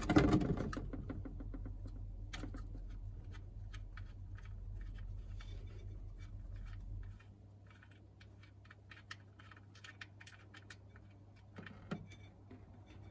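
Light, irregular clicks and ticks as a loosened steel sump plug is turned out of a VW Polo's oil pan by hand, with a steady low hum underneath that stops about seven seconds in. A louder knock comes near the end, as the plug comes free and the oil starts to run.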